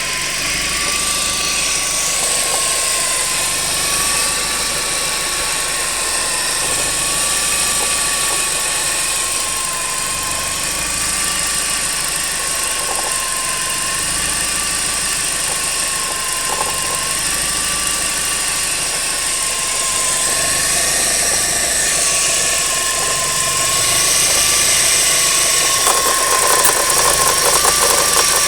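Volkswagen Jetta 1.8T turbocharged four-cylinder engine idling, with a steady whine that wavers slowly up and down in pitch; this is the strange noise the owner is trying to identify. Near the end it gets a little louder and a fast ticking joins in.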